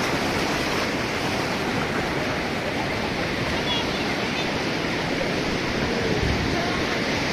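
Sea surf breaking and washing up the beach in shallow foam, a steady rush of water.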